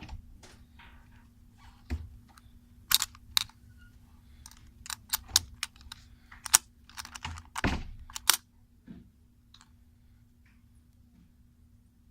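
A toy house's window lock being worked open by hand: a run of sharp clicks and rattles, thickest and loudest from about three to eight and a half seconds in, then it goes still.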